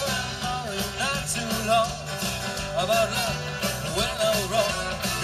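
Live rock-and-roll band with a country feel, played through PA speakers: a singer's vocal melody over acoustic and electric guitars, bass notes and a steady drum beat.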